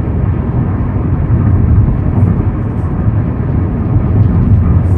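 Steady in-cabin road and engine noise of a Hyundai Sonata Brilliant cruising on an expressway at about 100–110 km/h: a low, even rumble.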